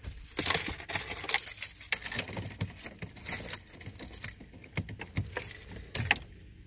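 Light metallic jangling and irregular clicks of small objects being handled, with no engine running yet.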